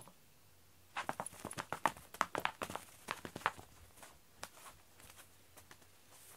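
A rapid, irregular run of light clicks and taps starting about a second in, densest for two or three seconds and then thinning out to a few scattered taps.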